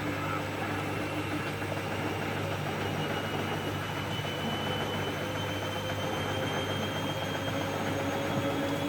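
Siemens Extraklasse F1300A washing machine running: a steady motor hum with a faint whine that rises slowly in pitch.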